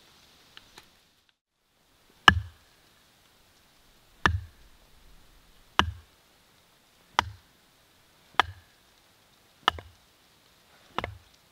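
Hatchet chopping into wood: seven strikes about one and a half seconds apart, starting about two seconds in, each a sharp knock with a low thud.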